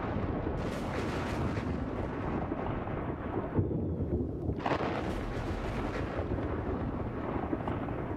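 Deep rumbling and booming entrance effects from an arena sound system for a boxer's ring walk, with a couple of sharper surges about three and a half and four and a half seconds in, as pyrotechnic spark fountains fire.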